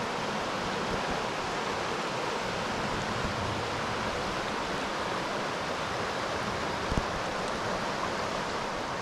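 Steady rushing of a shallow, clear river running over riffles, with one brief knock about seven seconds in.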